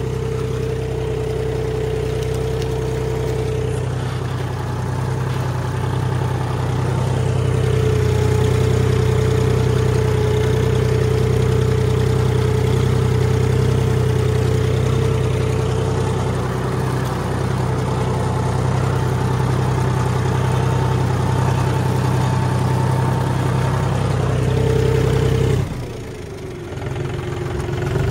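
Tractor's diesel engine running steadily, with a brief drop in level near the end before it picks up again.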